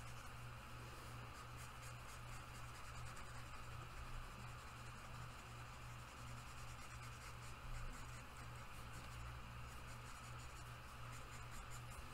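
Felt-tip marker colouring in on paper: faint, rapid back-and-forth scratching strokes, over a steady low hum.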